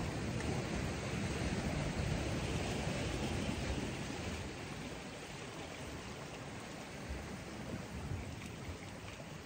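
Wind and sea wash by a rocky shore: a steady rushing hiss with a low rumble that eases off about four seconds in.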